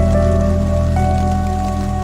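Slowed-down, heavily reverberant ambient music with a deep bass and long held notes that shift every second or so, mixed over the steady patter of a rain sound effect.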